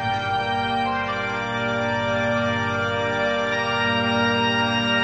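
Background music of long, steady held chords.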